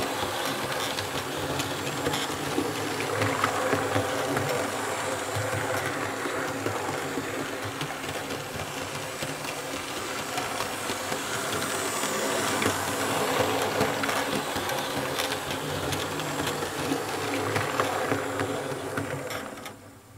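Märklin H0 E41 model electric locomotive with passenger coaches running on Märklin K-Track laid on 3 mm cork underlay: a steady motor hum and wheel rumble with many light clicks from the wheels on the rails. The sound falls away sharply near the end as the train comes to a stop.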